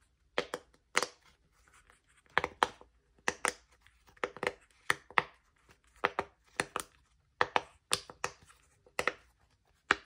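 Green octagonal silicone push-pop bubble fidget toy being pressed bubble by bubble, giving a run of short, sharp pops at an irregular two or so a second.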